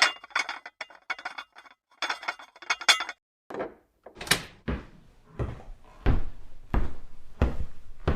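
A rattling clatter of small clicks for about three seconds, then a run of heavy thuds, about one every two-thirds of a second.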